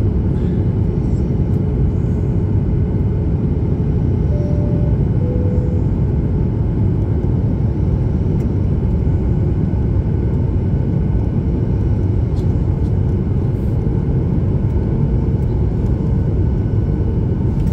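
Steady low rumble of an airliner's engines and rushing air, heard inside the passenger cabin in flight.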